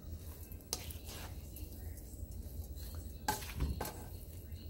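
A spatula scraping and tossing stir-fried bean-thread and rice noodles in a wok, with a few sharper scrapes against the pan, about a second in and again near three and a half seconds, over a faint sizzle.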